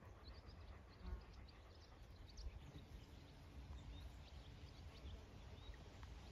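Near silence: faint outdoor ambience with a low rumble and scattered faint, short high chirps.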